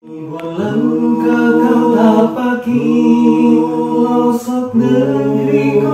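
Voices singing a cappella in harmony, holding long chords that change about every two seconds, fading in at the start.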